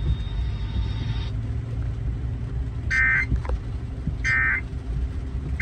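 EAS end-of-message (EOM) signal: short bursts of the SAME digital data tone, a shrill warbling screech, about 1.3 s apart. They start about three seconds in, and the third begins right at the end. Under them runs a steady low vehicle rumble.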